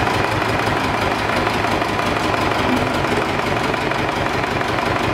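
Ursus C-328 tractor's two-cylinder diesel engine running steadily at low revs with an even, rhythmic pulsing as the tractor drives slowly.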